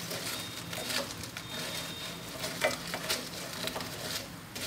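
Fried green banana chips being tossed with chopsticks in a nonstick frying pan of hot sugar syrup and sesame seeds. There is a soft steady sizzle, with scattered clicks and scrapes of the chopsticks against the pan and the chips.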